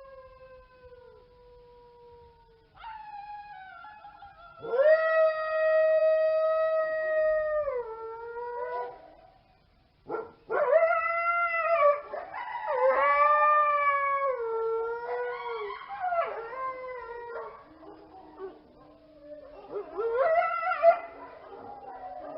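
Canines howling: long, drawn-out howls that hold a steady pitch and fall off at their ends, with several voices overlapping in a chorus from about halfway through.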